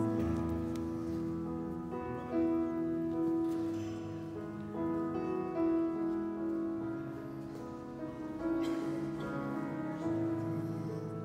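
Piano-type keyboard playing slow instrumental music, with sustained chords and a new chord struck every couple of seconds.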